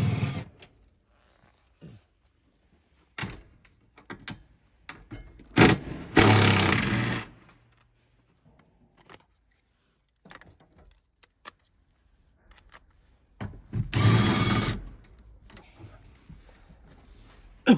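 Hand tools working on the hybrid battery pack's fixing bolts and cables: scattered metallic clicks and clinks, and two louder bursts of tool noise, each about a second long, about six seconds in and again near fourteen seconds.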